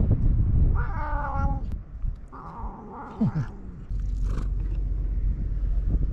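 A stray cat meowing twice: a short meow about a second in, then a longer, rougher cry from about two and a half to three and a half seconds, over a low rumble.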